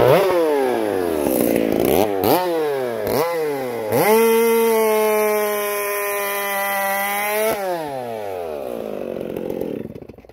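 Stihl 084 AV chainsaw with a 32-inch bar, bored out to 130 cc, revving up and down several times, then held at full throttle in a cut through a large log. About seven seconds in, the throttle is released and the engine winds down, and the sound dies away near the end.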